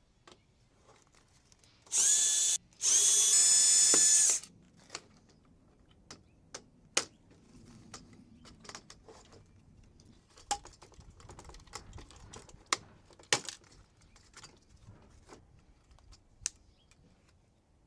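A power drill spins briefly twice, about half a second and then about a second and a half, backing out screws. Light scattered clicks and knocks of parts being handled follow.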